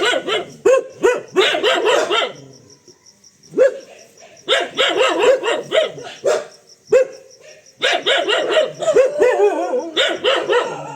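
Dog barking in quick, agitated volleys with short pauses between, an alarm reaction to a fake tiger.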